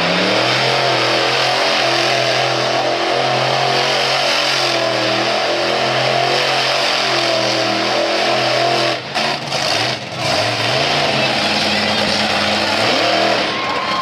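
Monster truck engine running hard at high revs while the Virginia Giant truck spins in the dirt, its pitch wavering up and down, with two brief dips in level about nine and ten seconds in.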